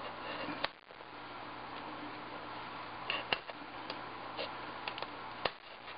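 Foam-core board being cut by hand as the corners of a small square are trimmed off to round it into a disc: small sharp cutting clicks, three louder ones spaced a couple of seconds apart, over a steady low hum.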